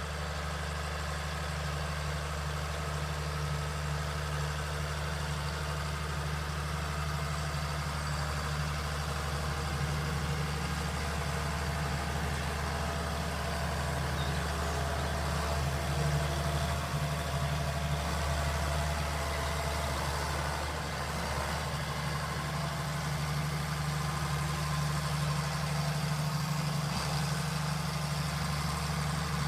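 Tractor engine running steadily as it pulls a plough, a constant low hum with no change in speed.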